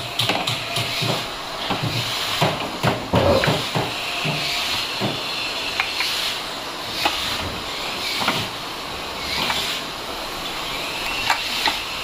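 Scattered metal clicks and knocks from a hand-lever rack-and-pinion arbor press and the parts on it, as bearings and seals are pressed onto a washing-machine impeller shaft. The loudest cluster comes about three seconds in, over a steady hiss.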